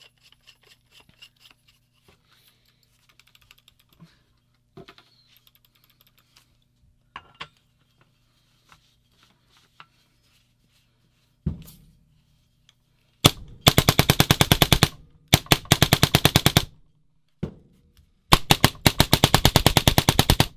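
Electronic paintball marker firing on compressed air in its ramping mode: fast strings of sharp shots in three bursts starting about 13 seconds in, with a single shot between the second and third. Before that there are only light clicks of handling and a thump.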